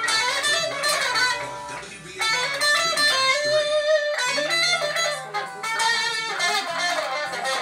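Electric guitar being played: a run of picked notes and strummed chords, dipping briefly about two seconds in, with a held low note near the middle.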